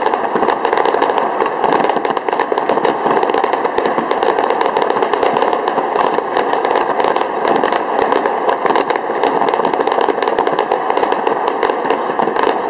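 Fireworks being launched and bursting, a dense, continuous rapid crackle of small reports with no pause.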